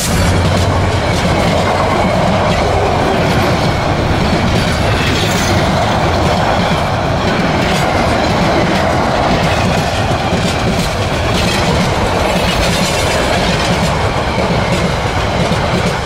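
Diesel locomotive and a long string of passenger coaches passing close by at speed: a loud, steady rumble of wheels on rails with clickety-clack over the rail joints.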